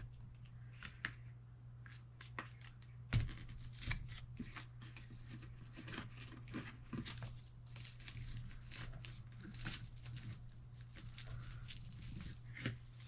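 Double-sided hook-and-loop (Velcro) cable strap being peeled apart and wrapped around a rotary tool's cord: repeated short rasping rips and crackles. A steady low hum runs underneath.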